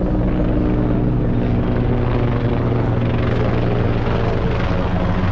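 Royal Canadian Air Force helicopters flying overhead in formation, their rotors and engines making a steady, loud drone.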